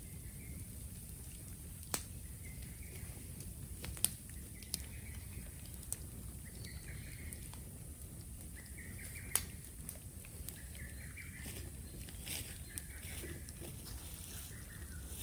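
Bonfire of raw bamboo crackling, with sharp pops every second or two over a low steady rumble.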